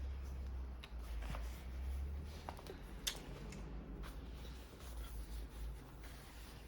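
Close-up handling sounds: soft rustling and a few small sharp clicks and taps over a low rumble.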